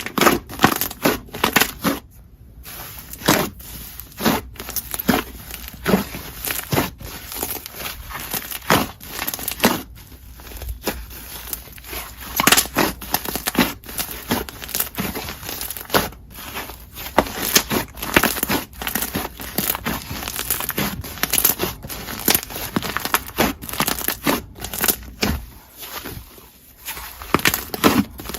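Slime being squished, poked and stretched by hand, making a dense, irregular run of sticky clicks, pops and crackles.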